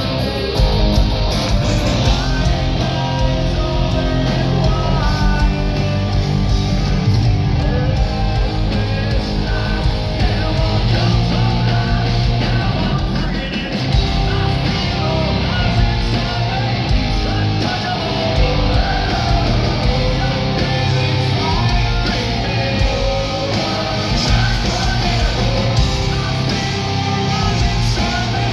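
Hard rock band playing live and loud: distorted electric guitars, bass and drums, with a male lead singer singing and shouting over them.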